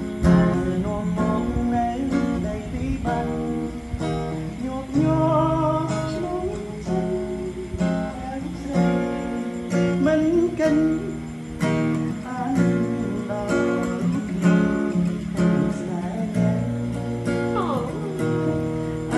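Acoustic guitar strummed in chords, with a voice singing a Khmer song over it.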